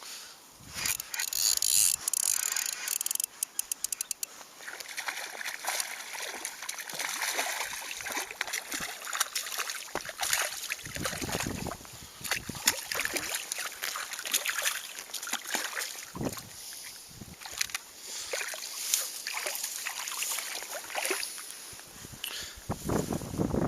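Water splashing and sloshing beside a small boat, with irregular handling knocks and a quick run of clicks about three seconds in.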